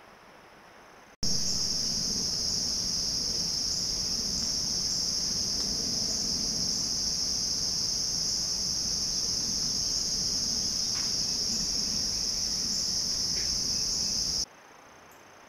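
A loud, steady, high-pitched chorus of insects that starts abruptly about a second in and cuts off suddenly near the end.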